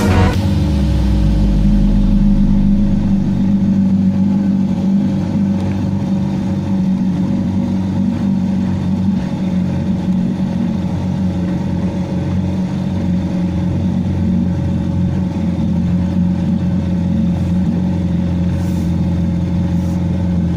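Evinrude Fastwin two-stroke outboard motor running steadily.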